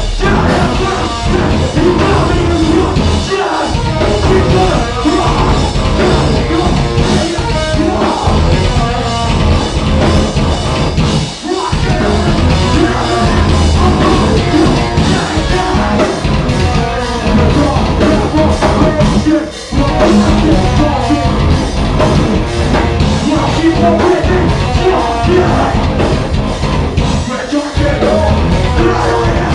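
Live metalcore band playing loud through a club PA, with a full band and vocals. The music drops out for a moment twice, about 11 and 20 seconds in.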